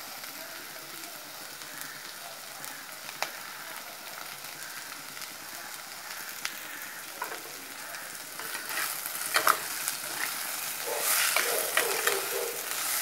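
Sliced onions, green chillies and garlic sizzling in hot oil in a clay pot, with a steady frying hiss. About two-thirds of the way in, a spoon starts stirring and scraping through them against the pot, and the strokes get louder toward the end.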